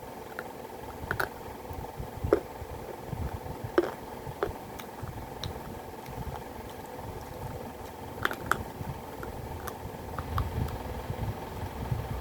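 Sharp crunches of baked clay pot (matki) pieces being bitten and chewed, scattered a second or more apart with a cluster about eight seconds in, over a steady fan hum.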